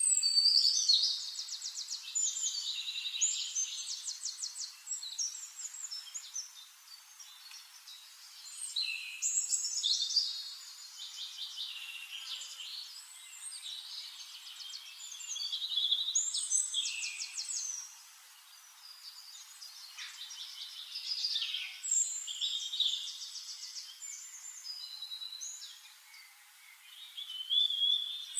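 Songbirds singing in a forest: bursts of fast trills and warbled chirps come roughly every six seconds, with quieter calls in between.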